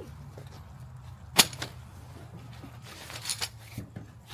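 A single sharp knock or click about a second and a half in, then brief rustling or clattering near the end, over a steady low hum.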